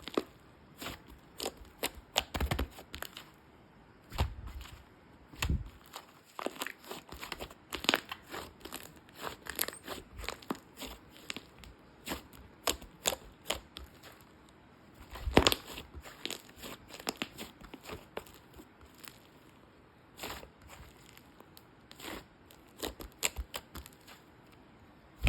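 Fluffy slime being pressed and stretched by hand, giving many irregular sharp clicks and pops as trapped air bursts, with a louder flurry about fifteen seconds in.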